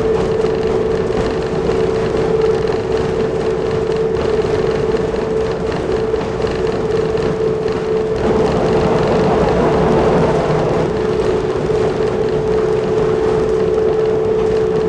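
Nanbu Jūkan Railway KiHa 10 rail bus running along the line, heard from inside: a steady diesel drone with a constant hum over the clatter and rumble of wheels on rail. The running noise swells for a few seconds about halfway through.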